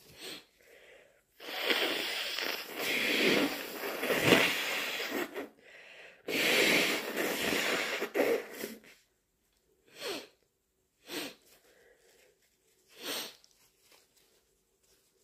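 A person working up to sneeze: two long, loud, wheezy gasping breaths, the first about four seconds and the second about three, then three short, sharp breathy bursts near the end.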